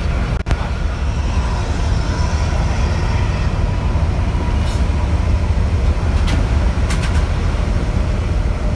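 Steady low rumble of engine and road noise inside a moving coach bus built on a Mercedes-Benz OH 1526 chassis, cruising on a highway. A few short high hisses sound in the second half.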